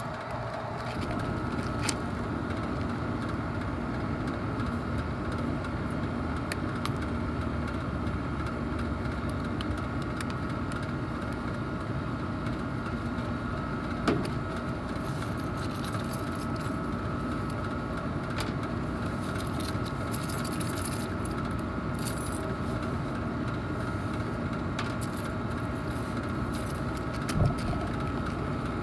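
HVAC package unit running: a steady hum carrying two faint steady tones, with a light knock about halfway and another near the end.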